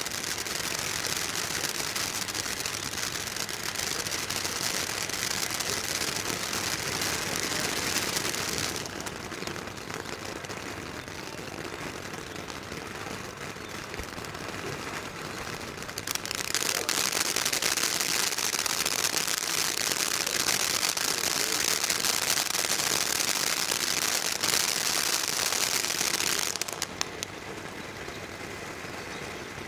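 Weco Andromeda firework fountain hissing steadily as it sprays sparks, in phases: loud at first, softer from about nine seconds in, loud again from about sixteen seconds, then softer again near the end, with a few pops where it changes.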